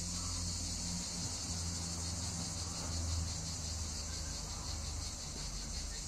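Steady, high-pitched chorus of insects shrilling without a break, over a low steady hum.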